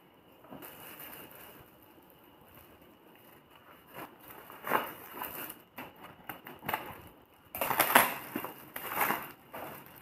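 Kraft paper mailer tube being cut with scissors and torn open by hand: irregular rustling, crinkling and ripping that starts about four seconds in, loudest near the end.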